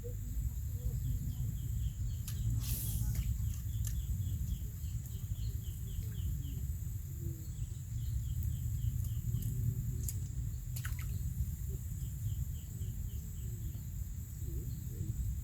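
Outdoor ambience with a steady low rumble, a steady high insect drone, and a bird calling in three quick runs of short chirps, about five a second. Two brief sharp clicks come about three seconds in and near the middle.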